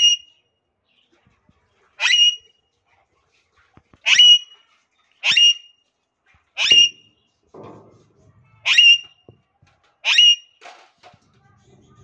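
Alexandrine parakeet giving loud, short, harsh squawks: six or seven sharp calls spaced one to two seconds apart.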